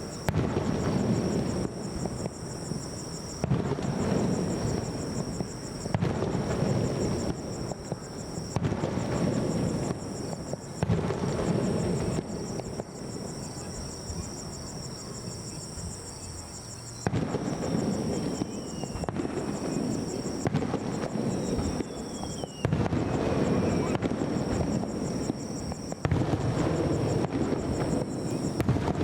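Aerial firework shells bursting one after another, a steady run of booms and crackling tails every second or two, with a quieter lull of a few seconds in the middle.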